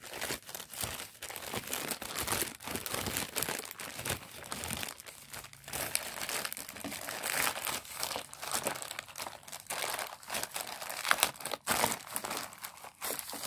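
Plastic courier mailer bag crinkling and crackling as it is handled and torn open by hand, in an irregular run of sharp crackles, the sharpest about eleven seconds in.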